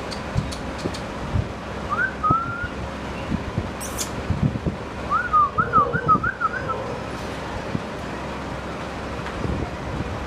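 Golden retriever puppies whimpering: a short squeaky whine about two seconds in, then a quick run of high squeaks a little past halfway. Scattered low thumps sound under them.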